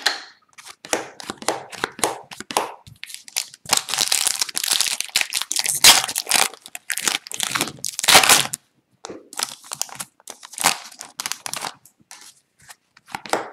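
Trading cards flicking and sliding against each other, then the foil wrapper of a 2021-22 Upper Deck hockey card pack crinkling and tearing open for about five seconds in the middle, then more light card-handling clicks.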